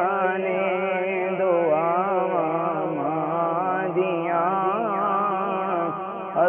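A man's solo voice singing a Punjabi naat, drawing out a long unbroken melismatic phrase whose pitch wavers and bends between the lines of the verse.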